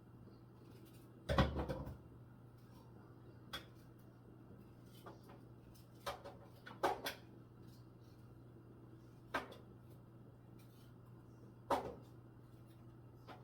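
Scattered knocks and clatters of kitchen handling, things set down or knocked against a counter or board, about six separate times with the loudest cluster about a second and a half in, over a steady low hum.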